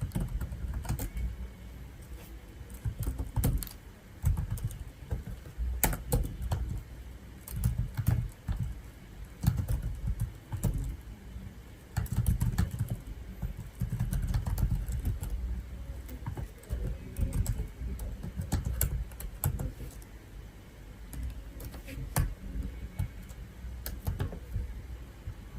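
Typing on a computer keyboard: irregular keystrokes, in runs and pauses, over a low rumble.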